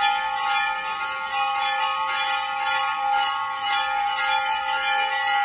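Temple bells rung rapidly and without pause during aarti worship: a dense clanging of many quick strikes over a steady ringing tone.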